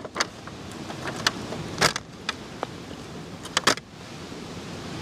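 About half a dozen sharp clinks and taps as scored lionfish are laid into a disposable aluminium foil pan and the hand works between pan and plastic cutting board, over a steady background hiss.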